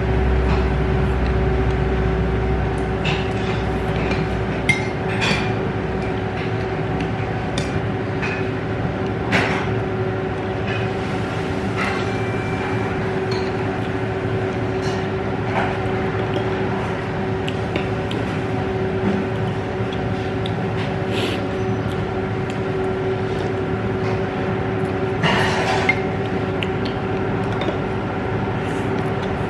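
A steady machine-like hum fills the room, with occasional light clinks and taps of chopsticks and a spoon against dishes.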